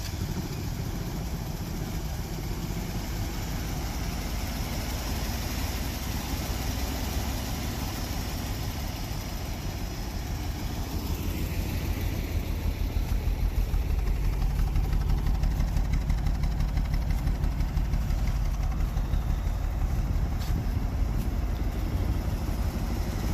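Car engine idling just after being started, with a steady low rumble that grows somewhat louder and more pulsing about halfway through.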